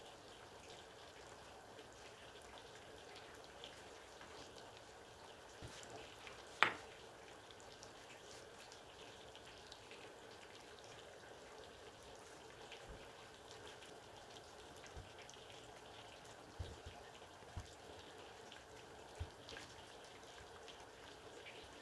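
Faint kitchen handling noise over a steady low hiss: scattered light ticks and a few soft knocks, with one sharper click about six and a half seconds in, as spring roll pastry is folded and stuck around potato filling.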